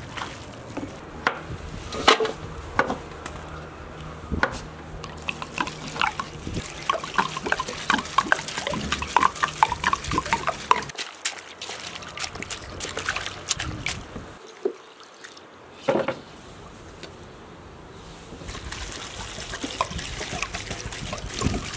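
Water poured in a thin stream from a clay jug onto fresh greens in an aluminium basin, splashing and trickling as the greens are rinsed. There are two short lulls midway through.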